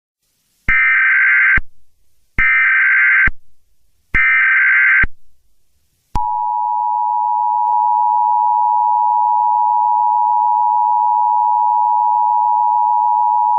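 Emergency Alert System alert opening. First come three short bursts of SAME digital header data, each a buzzy warble just under a second long, with short gaps between them. Then, about six seconds in, the steady two-tone EAS attention signal begins and holds unbroken.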